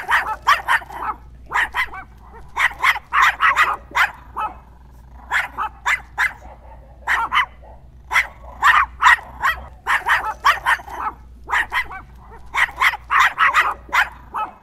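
Chihuahua giving quick, high little yips and barks in bunches of two to five, again and again with short pauses between.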